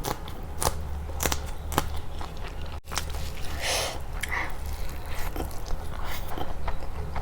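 Close-miked eating: biting and chewing with repeated sharp wet mouth clicks, and a longer crunchy bite a little after the middle.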